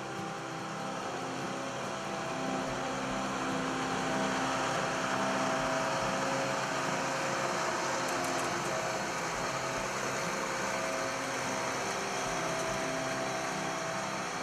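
Case IH 2388 combine's diesel engine running steadily, a constant mechanical drone with a few held tones under it.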